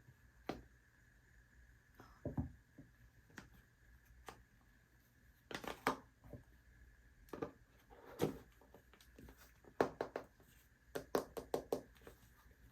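Scattered light taps, clicks and knocks of small objects being handled, irregular and bunched in quick clusters in the second half, over a faint steady high-pitched hum.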